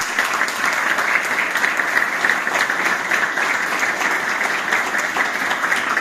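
A roomful of people applauding with sustained, steady clapping.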